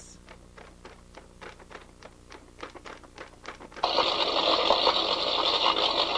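Faint rapid clicking, then about four seconds in a loud, steady rush of fire noise starts abruptly and keeps going: a flames sound effect.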